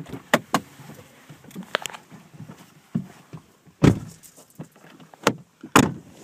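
Knocks and handling rustles of people getting out of a Volkswagen car, with car doors thudding shut; the two heaviest thumps come in the second half.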